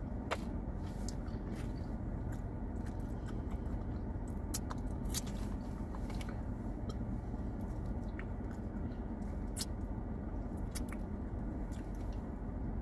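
Close-up chewing of a sub sandwich, with scattered wet mouth clicks and smacks, over a steady low hum of the car's air conditioning.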